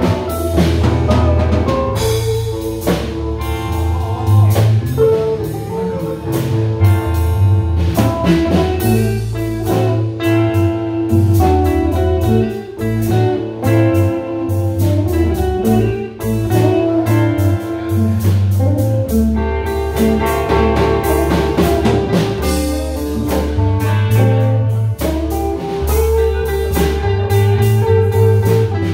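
Live band playing through amplifiers: several electric guitars over a drum kit keeping a steady beat.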